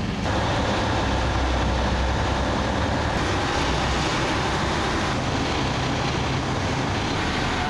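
Steady drone of a ship's engine under way, with a constant rush of wind and water noise.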